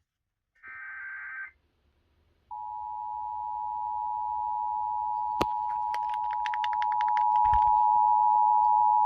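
A brief burst of buzzing digital data, then the Emergency Alert System two-tone attention signal starts about two and a half seconds in and holds steady, growing louder near the end. A sharp click and a run of rapid ticks sound over the tone midway.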